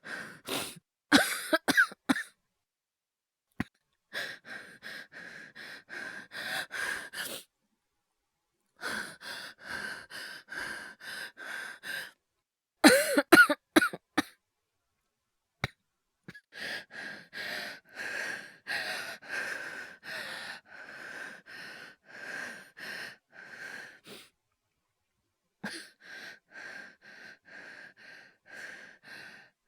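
A man's acted coughing fits alternate with long runs of fast, short, laboured breaths, about two a second, performed as an asthma attack or hyperventilation. The loudest coughing comes at the start and again a little under halfway through.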